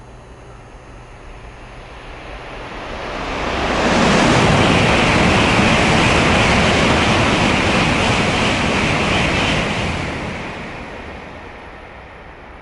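Shinkansen high-speed train passing through the station at speed without stopping: a rushing noise that swells over about two seconds, holds loud for about six seconds, then dies away.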